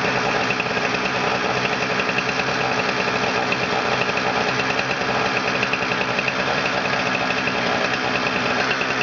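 Engine running steadily at an even speed.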